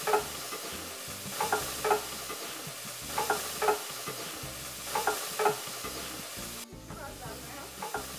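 Wet stinging-nettle paste hitting hot tempering oil in a wok, sizzling steadily. A slotted steel spoon scrapes the paste out of a steel bowl, giving pairs of short metallic knocks about every second and a half.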